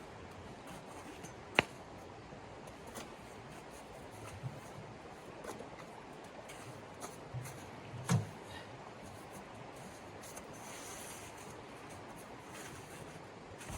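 A few sharp clicks and a short, low knock over a faint, steady hiss, like small objects being handled. The loudest click comes about a second and a half in, and the knock about eight seconds in.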